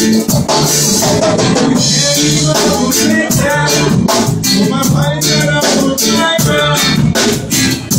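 Live reggae band playing electric guitar, keyboards and drum kit over a steady bass line, with high percussion strokes keeping an even rhythm.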